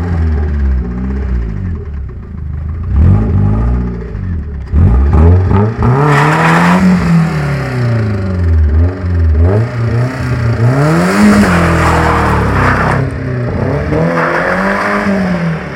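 BMW 318i's four-cylinder engine revving hard as the car is driven. The revs climb and drop back several times, with the three biggest climbs in the second half.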